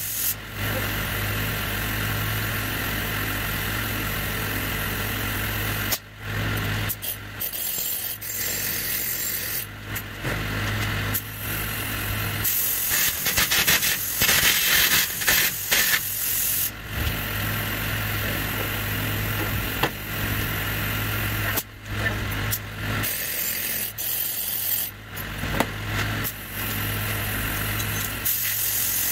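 Air-carbon arc gouging with a carbon rod: the arc crackles and compressed air hisses as it blows molten metal out of the weld, over a steady low hum. It cuts out briefly several times, near 6, 10, 17, 22 and 25 seconds, as the arc breaks and is struck again.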